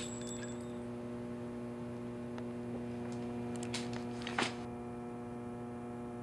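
A steady electrical-sounding hum with several even overtones, holding one pitch, with a few faint clicks about two and a half to four and a half seconds in.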